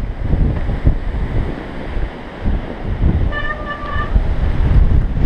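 Wind buffeting the action camera's microphone as the mountain bike rides along a snowy trail, a low, gusty rumbling noise. About three seconds in, a brief high-pitched tone sounds in short pieces.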